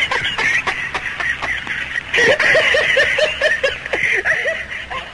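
Several people laughing, with one voice breaking into a quick run of ha-ha syllables about two seconds in.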